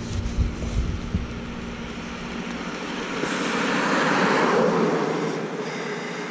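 A vehicle passing, its noise swelling to a peak a little past the middle and fading away again. Wind buffets the microphone in the first second.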